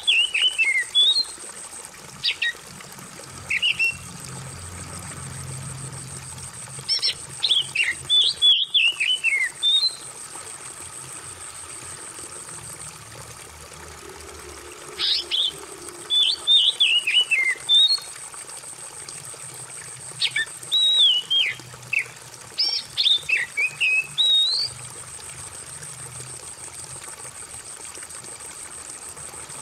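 Oriental magpie-robin (kacer) singing several spells of quick, varied whistled phrases with pauses of a few seconds between them, over a steady trickle of running water. A thin, steady high tone runs underneath.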